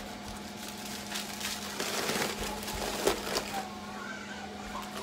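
Plastic zip-top freezer bags of meat crinkling and rustling as they are handled and packed into a chest freezer, loudest about three seconds in.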